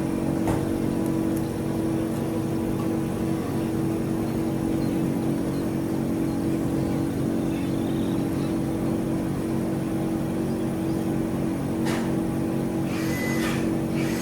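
A steady mechanical hum, even in pitch, with a few sharp clicks near the end.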